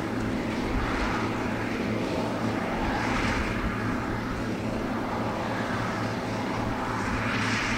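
Heavy diesel engines of silage-harvesting machinery running steadily at a constant pitch, with a rushing noise that swells and fades every couple of seconds.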